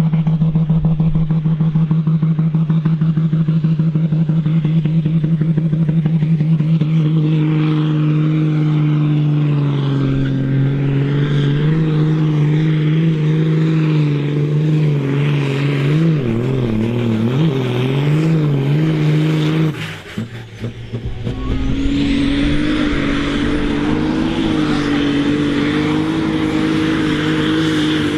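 Ford pulling tractor's diesel engine running hard as it drags a weight-transfer sled, its note steady at first and then wavering up and down. About 20 seconds in it cuts off abruptly, and a second pulling tractor's engine follows at a higher pitch.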